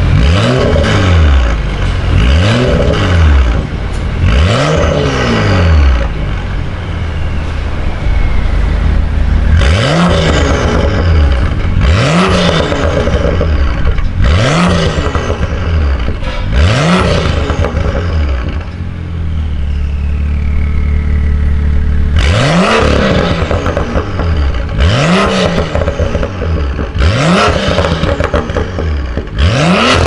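BMW M2 F87's turbocharged inline-six, through an Akrapovic full exhaust system with high-flow downpipe, free-revved while parked: sharp rev blips that rise and fall in three sets of about four. The engine settles to idle between sets, after about 6 s and again after about 19 s.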